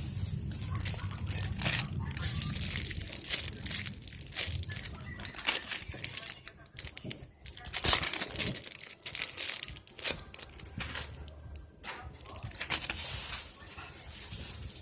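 Crafting materials crinkling and rustling as they are handled, with irregular sharp crackles throughout.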